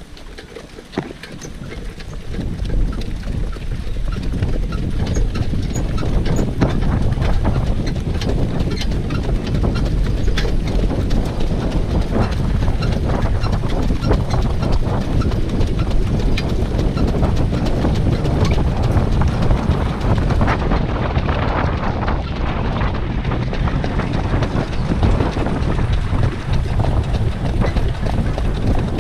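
Standardbred harness horse's hooves beating on a dirt racetrack as it pulls a sulky at speed, with heavy wind rumble on the microphone. It grows louder over the first few seconds as the pace builds.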